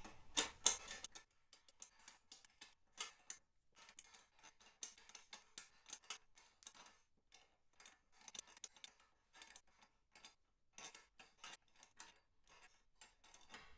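Light metal clicks and ticks, irregular, a few a second, with a couple of louder clicks about half a second in, as a spring-compressor jig is tightened to draw down the twin-spring box of a Vincent Girdraulic front fork.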